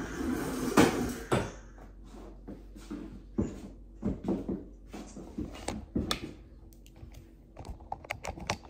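Irregular light knocks and clicks, a few at a time with gaps between, with some rustling in the first second or so.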